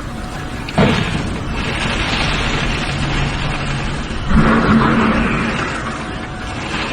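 A windmill breaking apart: a loud rushing noise with two sudden crashes, one about a second in and one about four seconds in.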